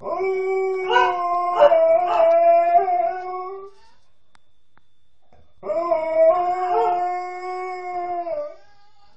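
Alaskan Malamute howling: two long howls, each held at a fairly steady pitch, with a gap of about two seconds between them. The owner puts the howling down to her missing her mother.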